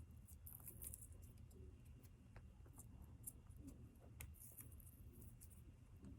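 Faint crinkling and small clicks of washi tape being handled and wrapped around a charger cord, over a low steady hum.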